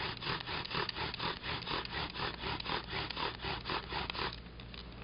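Bow drill: a live oak spindle grinding in an oak fireboard as the bow is sawed back and forth, a rhythmic rasping at about five strokes a second that stops about four seconds in. The friction is grinding out smoking black dust.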